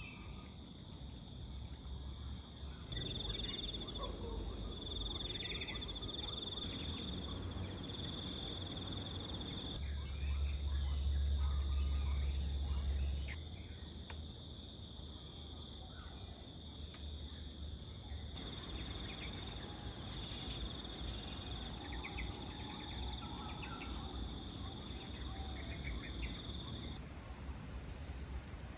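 A steady, shrill chorus of trilling insects, with a few faint bird calls and a low rumble underneath that is strongest for a few seconds in the middle. The pitch and mix of the chorus change abruptly several times, as between separately recorded shots.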